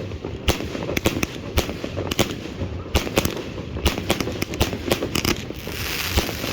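Fireworks going off: a run of sharp bangs, about one or two a second, with a hissing crackle building up near the end.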